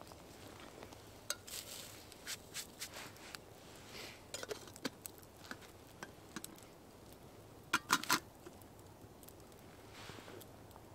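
Small wood campfire crackling with scattered sharp pops and ticks. About eight seconds in there is a quick run of three louder clicks.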